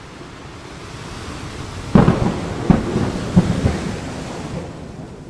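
Thunderstorm: a sudden thunderclap about two seconds in, followed by a few more cracks that die away, over a steady hiss of rain.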